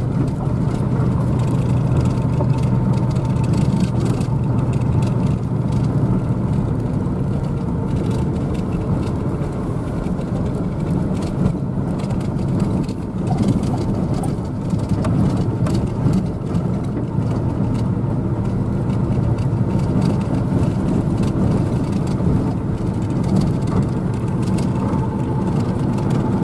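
Pickup truck driving on a dirt road, heard from inside the cab: a steady engine drone with road noise.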